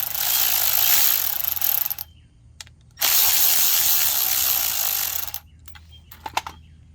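A ratchet undoing the 7 mm bolts holding a small-engine carburetor's float bowl, in two long runs of a couple of seconds each. A few light metal clinks follow near the end.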